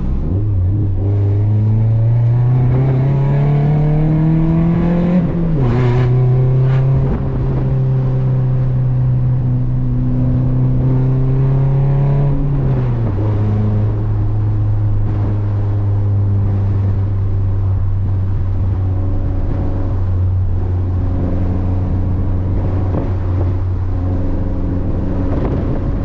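Toyota Corolla's four-cylinder engine pulling through the gears of its manual gearbox: the revs climb for about five seconds, fall sharply with an upshift, hold steady, fall again with a second upshift about halfway through, then the car cruises at steady revs.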